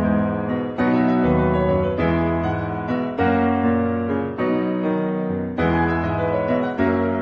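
Slow piano music: chords struck about once a second, each fading before the next.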